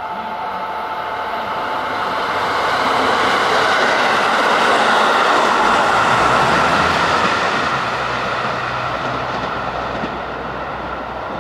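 JR KiHa 85 diesel limited-express train passing close by. Its Cummins diesel engines and its wheels on the rails swell to a peak about five seconds in, then fade as it draws away, leaving a low drone.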